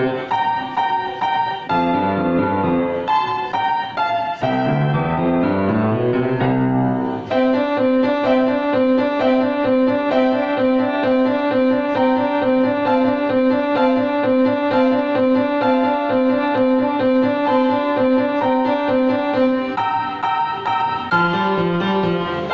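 Grand piano played solo: a rising run of notes about five seconds in, then a long stretch of a steady two-note figure alternating between pitches about an octave apart. The figure changes near the end.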